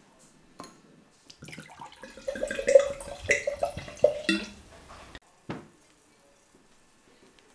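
White wine glugging from a bottle into a stemmed wine glass for about four seconds, stopping sharply, followed by a single knock.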